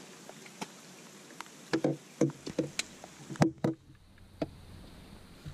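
A run of irregular knocks and clunks on the deck of a fiberglass bass boat, about a dozen over two to three seconds, from gear or fish being handled, heard over a steady hiss of rain.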